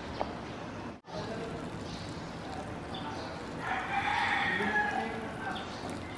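Hot water poured from a kettle into a plastic cup of instant noodles, with a rooster crowing in the background about four seconds in.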